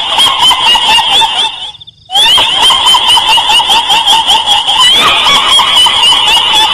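Shrill, continuous cackling chatter, offered as the laughter of a black pocong ghost. It cuts out briefly about two seconds in, then carries on unchanged.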